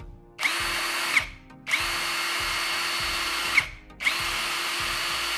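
SUNC Tools 48V cordless impact wrench triggered three times and run free with no load: the motor whines up, holds a steady pitch, and stops sharply on release. The first run is short, the second about two seconds, the third is cut off near the end.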